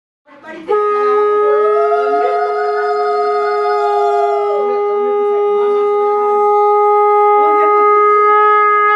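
Conch shell (shankha) blown in one long, steady note. It starts under a second in and holds to the end. A second, higher conch note wavers up and down over it for the first few seconds.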